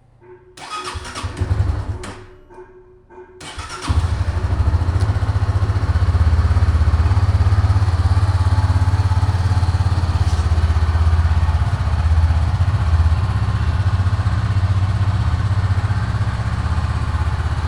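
Honda CB300F's single-cylinder engine being started after an oil change: the electric starter cranks for about three seconds, then the engine catches and settles into a steady, even idle.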